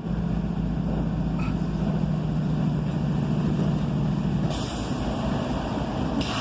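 Diesel engine of a freight locomotive running steadily with a deep hum. Two short bursts of hiss come in, one about four and a half seconds in and one near the end.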